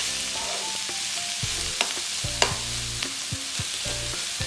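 Sliced onions frying in hot coconut oil in a nonstick kadai, sizzling as a spatula stirs them. There are two sharp clicks of the spatula against the pan a little under halfway through.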